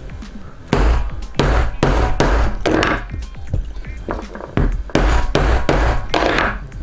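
A mallet striking a leather punch through a leather strip on a punching board: a run of about seven sharp knocks with a dull thud, a short lull, then about six more.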